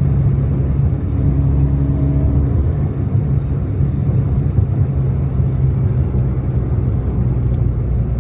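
Steady low engine drone and road noise from a vehicle on the move.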